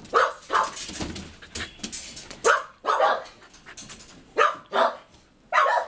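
A Keeshond giving short, excited barks and yips, about eight of them at irregular intervals.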